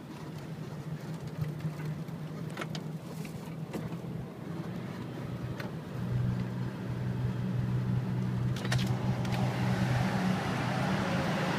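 Car engine and road noise heard from inside the cabin while driving: a steady low hum that gets louder about six seconds in, with a couple of faint clicks and a rising hiss of tyre noise near the end.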